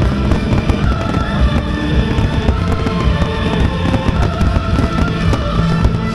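Aerial fireworks bursting and crackling in quick succession over a loud musical soundtrack with held tones.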